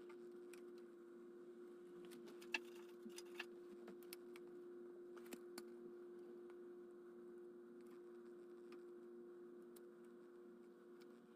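Faint steady hum with a few small sharp clicks and taps, the loudest about two and a half seconds in.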